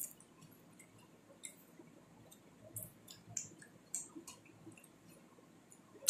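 Wet mouth clicks and lip smacks from a person eating dal and rice with her fingers: she sucks the food off her fingertips and chews. The clicks come every second or so, and a sharper, louder one falls right at the end.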